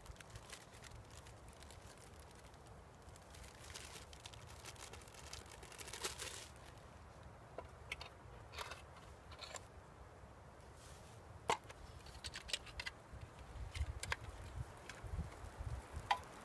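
Faint handling sounds: a plastic zip bag crinkling, then scattered sharp clicks and taps as a small metal tin of charcloth is handled, over a low rumble.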